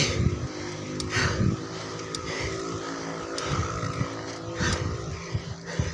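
Motorcycle engine labouring up a steep climb with a steady drone, over uneven gusts of wind on the microphone.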